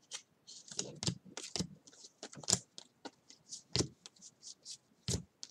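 2018 Bowman baseball trading cards being flicked through by hand, one card slid off the stack after another: a quick, irregular run of light clicks and slaps of card on card.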